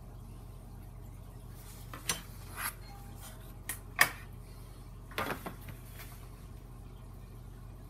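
A handful of light clicks and knocks from a metal ruler and foam-core board being handled on a tabletop, the sharpest about four seconds in, with a short cluster of taps about a second later. A steady low hum runs underneath.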